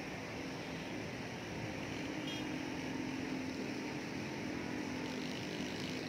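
Steady outdoor background noise: an even hiss with a low, steady hum under it, typical of distant traffic.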